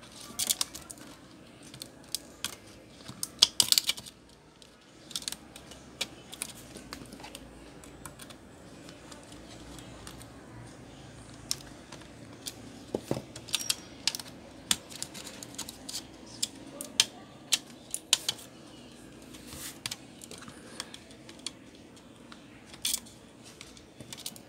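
Irregular plastic clicks and taps as hands work at the drive bay of an opened HP EliteBook 840 laptop, prying at the hard drive to remove it, with the loudest cluster of clicks about three to four seconds in.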